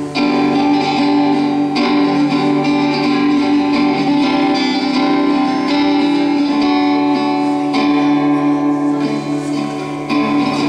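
Acoustic-electric guitar played through an amplifier on a clean setting: ringing strummed chords as the song's instrumental intro, changing chord every couple of seconds.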